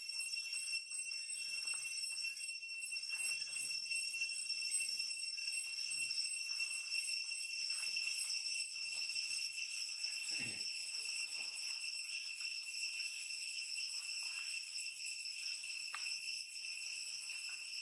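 Steady, high-pitched insect chorus, unbroken throughout. A few faint soft smacks are heard under it, one a little clearer about ten seconds in: an infant long-tailed macaque suckling at its mother's nipple.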